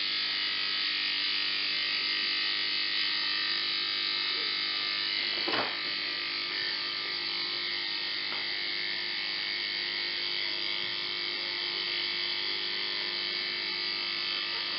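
Federal Model 17 electric motor from a 1950s Federal Beacon Ray running steadily with a hissing, buzzing brush noise: its reseated brushes are not yet fitting snug against the commutator and should quiet down as they seat. A single knock about five and a half seconds in, as the running motor is set down on a rag.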